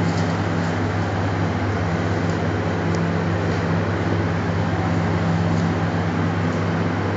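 Steady machine hum: a constant low drone over an even rushing hiss, like a fan or motor running continuously, with a few faint clicks.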